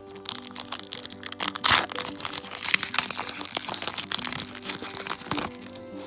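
Foil trading-card booster pack wrapper being torn open and crinkled by hand, a dense crackle with one loud rip about a second and a half in. Background music runs underneath.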